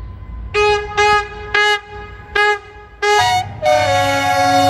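Henschel diesel locomotive horn: five short toots, then about three and a half seconds in a long blast sounding several notes at once, under which a low engine rumble is heard.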